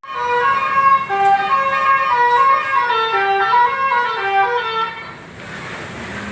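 A bus's telolet horn, a set of tuned air horns, playing a quick tune of short stepped notes for about five seconds, then stopping, leaving engine and traffic noise.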